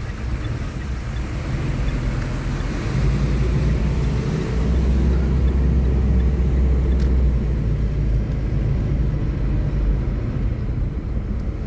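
Steady low rumble of a car driving on a wet road, heard from inside the cabin: engine and tyre noise, swelling a little about four seconds in.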